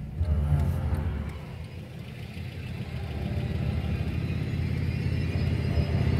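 Car driving, heard from inside the cabin: a steady low rumble of engine and road noise that grows louder over the last few seconds.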